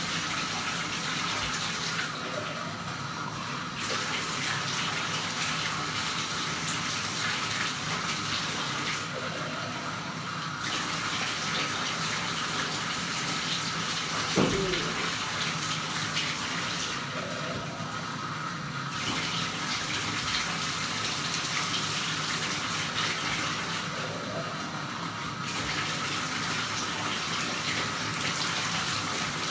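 Bath tap running into a tub while a dog is wetted down: a steady rush of water whose hiss dulls briefly four times. About halfway through comes one short squeak falling in pitch.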